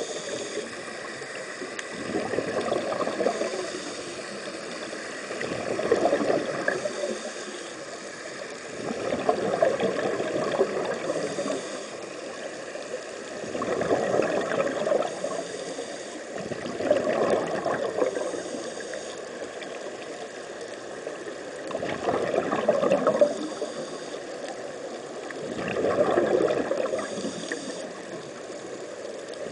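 Underwater recording of air bubbling from sea-walking dive helmets and breathing gear. The bubbling swells and fades in surges about every three to four seconds, over a steady hiss.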